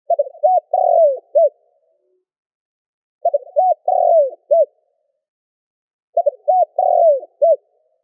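Spotted dove cooing: three phrases about three seconds apart, each a couple of short coos, a longer drawn-out coo and a final short coo.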